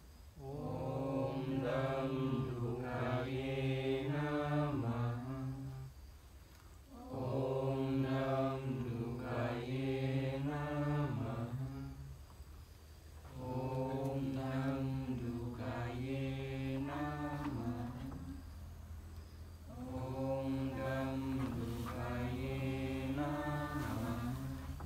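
A Sanskrit mantra chanted by a single voice in slow melodic phrases. There are four long phrases, each about five seconds, with short pauses between them.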